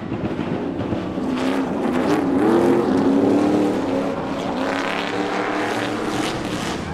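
Several Stadium Super Trucks' V8 engines running hard as a pack of trucks races through the corners. The pitch rises and falls as they accelerate and lift, loudest about two to three seconds in.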